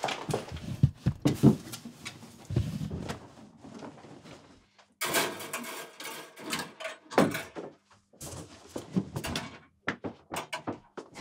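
A string of irregular knocks, bumps and rustles, like wooden cupboard doors and drawers being handled and searched through, with a longer scraping rustle about five seconds in.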